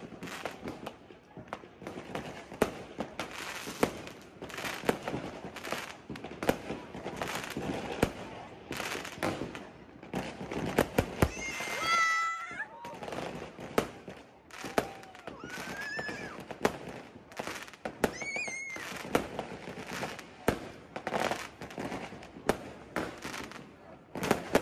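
Fireworks bursting overhead in a dense barrage of sharp bangs and crackles, several a second, with a few brief higher-pitched whistling sounds around the middle.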